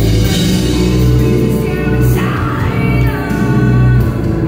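A metal band playing live and loud, with a woman singing into a microphone over heavy guitars and drums; a long held note comes in about three seconds in.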